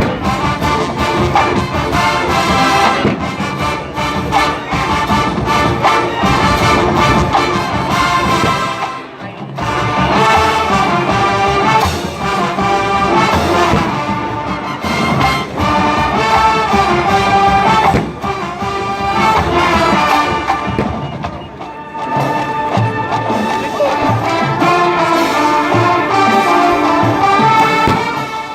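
College marching band playing, led by trumpets and trombones with drums underneath. The music eases off for a moment twice, about nine seconds in and again near twenty-two seconds.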